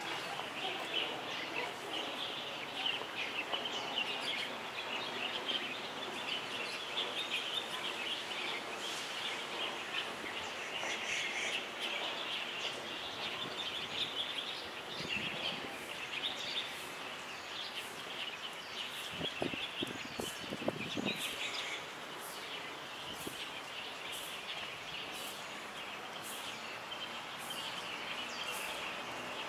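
A chorus of small birds chirping and twittering in the trees, a dense steady chatter throughout. A few soft knocks come about two-thirds of the way through.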